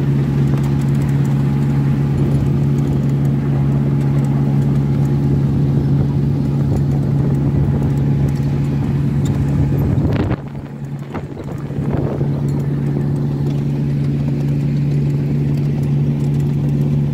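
Engine of a ride-on miniature railway locomotive running steadily under way, with a constant low note. The note drops away for about two seconds just past halfway, then picks up again.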